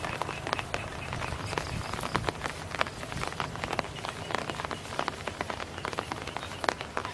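Dense, irregular patter of small water splashes and clicks, many short taps a second, over a steady low hum.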